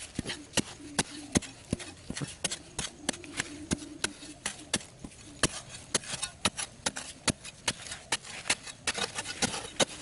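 A narrow metal digging blade on a long handle chopping and scraping into very dry, hard soil in a small hole. It makes irregular sharp knocks, about two or three a second.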